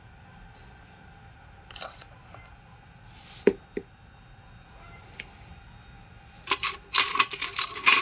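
Small hard parts clicking and clinking as they are handled: a few separate knocks, then a quick cluster of sharp metallic clicks near the end.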